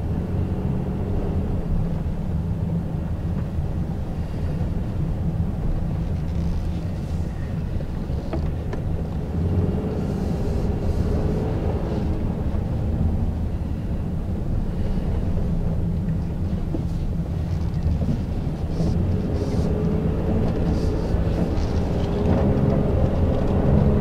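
Interior cabin noise of a 2017 Honda Ridgeline's 3.5-litre V6 pickup driving slowly on snow-covered road: a steady low rumble of engine and tyres, with the engine note rising a little a couple of times.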